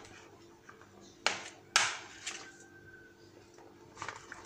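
A plastic spatula knocking and scraping against a plastic bowl and piping bag while mashed potato is scooped into the bag. There are two sharp knocks a little over a second in, about half a second apart, then fainter taps near the end.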